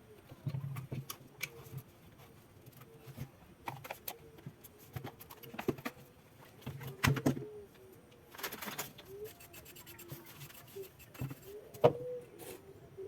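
A pigeon or dove cooing repeatedly in short low phrases, over scattered sharp clicks and knocks of small handling work, with a brief rustle a little past the middle and the sharpest click near the end.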